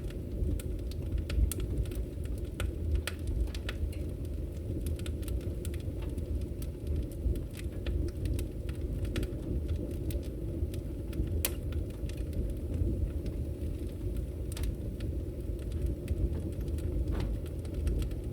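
Bonfire crackling: irregular sharp pops and snaps over a steady low rumble.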